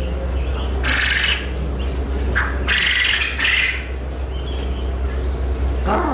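Caged quail giving three short, harsh calls, one about a second in and two close together around three seconds, over a steady low hum.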